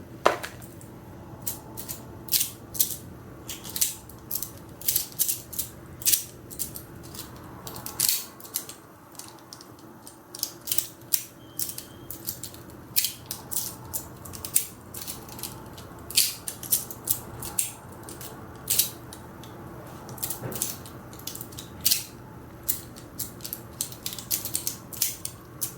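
Sharp, crisp clicks of a metal EDC fidget toy being worked by hand. They come irregularly, often several in quick succession, with short pauses between.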